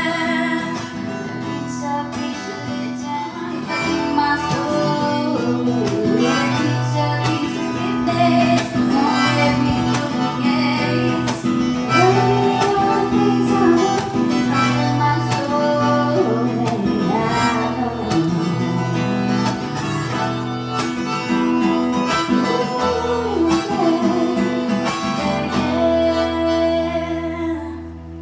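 Live acoustic guitar music, with chords held under a melody line that slides between notes, dying away near the end as the song finishes.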